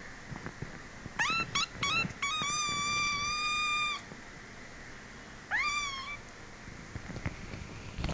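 Kitten meowing. About a second in come four quick short meows, then one long meow held at a steady pitch for about a second and a half. After a pause there is a last meow that rises and then falls.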